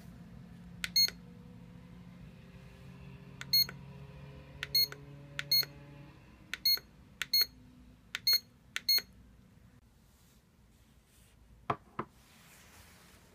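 Aroma diffuser's control buttons beeping as they are pressed to cycle its light colours: about eight short, high-pitched electronic beeps at irregular intervals. A single knock comes near the end.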